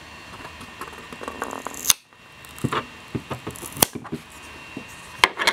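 Thin flexible 3D-printer build sheet bent by hand to pop a printed part free, giving sharp snapping clicks about two, four and five seconds in among lighter crackling and handling noise.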